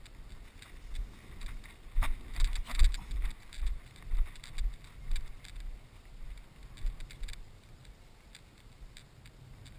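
Wind buffeting the microphone in irregular gusts, with rustling and footsteps through grass from the handler walking behind the tracking dog. The rustling and gusts are busiest in the first half and ease off toward the end.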